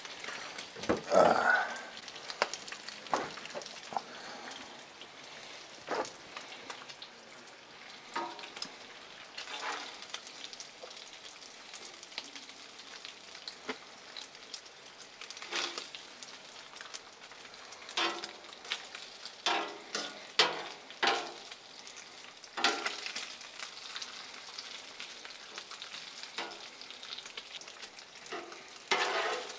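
Bacon sizzling steadily in its grease on a Blackstone flat-top griddle, with repeated short clacks and scrapes of metal tongs on the steel cooktop as cooked strips are picked up.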